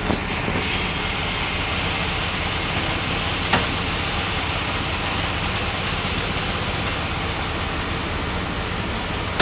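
Generator set engine running steadily, with one short click about three and a half seconds in.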